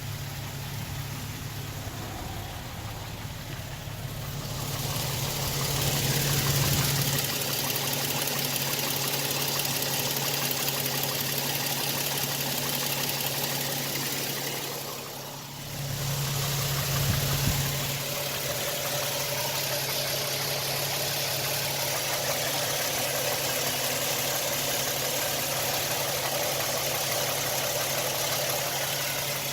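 2007 Toyota Tacoma's 4.0 L 1GR-FE V6 idling steadily with a knocking noise that the owner takes for piston slap. The sound grows louder and brighter about five seconds in and dips briefly in the middle.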